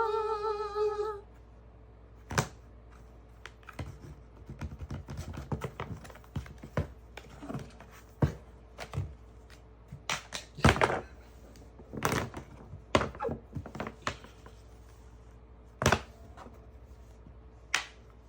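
Irregular clicks, taps and thunks of a phone case and its packaging being handled and opened, some clustered, some single. A short pitched tone is heard for about the first second.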